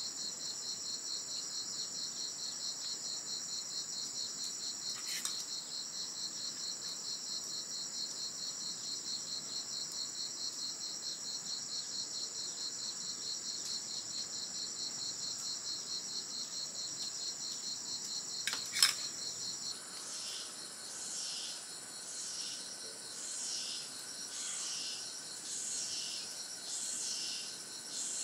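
Steady, fast-pulsing high insect trill in the forest. There is a faint click about five seconds in and a sharper, louder click just before the trill stops abruptly, about two-thirds of the way through. After it, a different high call repeats about once a second, each one falling in pitch.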